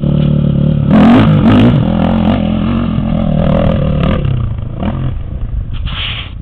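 Motocross dirt bike engine revving hard as the bike rides up toward and past the listener, loudest about a second in, then easing off and fading away. A short high-pitched sound comes near the end.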